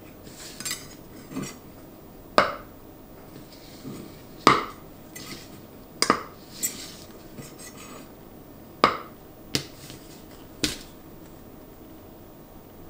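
Thin metal spatula sawing up and down around the inside of an aluminium chiffon cake tube pan to release the cake: soft scraping rasps and a series of sharp metallic clinks as the blade knocks against the pan's centre tube and wall.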